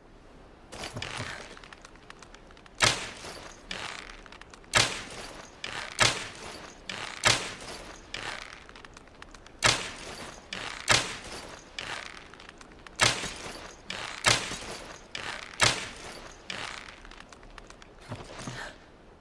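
Longbow sound effect: a series of sharp arrow-shot snaps, each with a short hissing tail, irregularly spaced a second or two apart, about a dozen in all, with softer ones in between the loudest.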